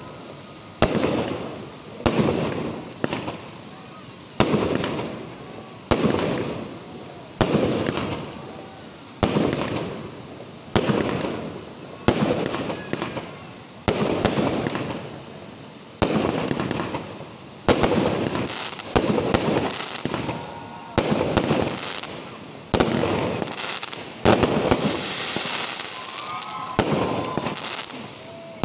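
Aerial firework shells bursting in steady succession, a sharp bang about every second and a half, each followed by a rolling echo. Near the end a longer crackling hiss runs under the bangs.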